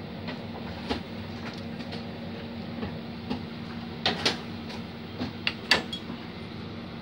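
Steady low hum with a handful of light clicks and knocks, most of them between about four and six seconds in.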